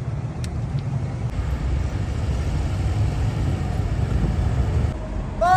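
Steady low rumble of road traffic running past.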